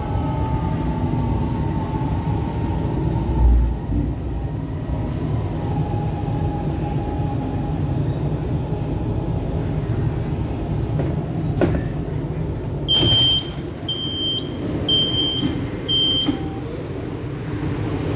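CSR Zhuzhou LRT train running along the track with a steady low rumble and a faint electric whine from its drive. There is a low thump a few seconds in, and near the end four short, evenly spaced high electronic beeps, about one a second.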